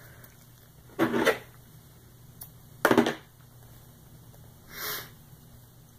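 Brief handling sounds at a fly-tying bench as materials are picked up and worked: two short knocks or rustles about one and three seconds in, and a softer hiss near five seconds.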